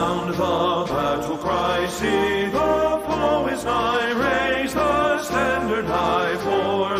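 Hymn music: voices singing held notes with a wide vibrato over a bass line that moves from note to note.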